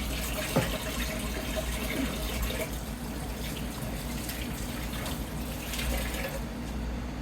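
Kitchen sink tap running while hands are washed under it; the water shuts off near the end.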